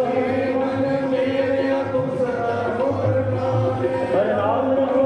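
Sikh kirtan music: a harmonium holds steady notes, and a man's singing voice glides through a phrase near the end.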